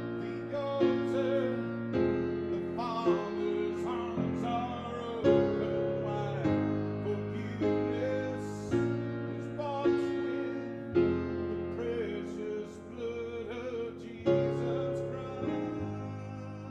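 Slow piano music, chords struck every second or two and left to ring, with a melody line over them.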